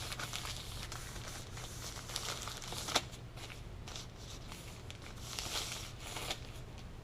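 Plastic packaging crinkling and rustling as it is handled and pulled from a fishing rod, with small crackles throughout and one sharp tap about three seconds in.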